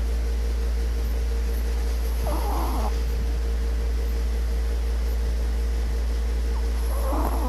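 A sleeping pet snoring: two short snoring breaths, about two seconds in and again near the end, over a steady low hum.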